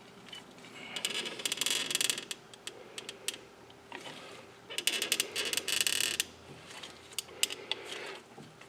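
Caliper piston compressor tool ratcheting in two runs of rapid clicking, each lasting over a second, as it pushes the brake caliper pistons back into their bores.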